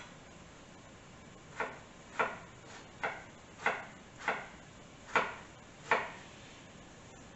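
Knife chopping peeled tomatoes on a wooden cutting board: about eight separate knocks of the blade hitting the board, unevenly spaced, starting about a second and a half in and stopping about a second before the end.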